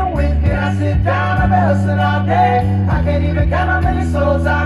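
Background music: a song with a sung vocal over a steady bass line.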